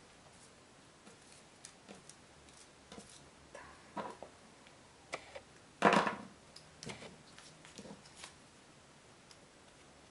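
Paper craft pieces being handled and placed on card stock: scattered light rustles and small taps, the loudest a short rustle about six seconds in.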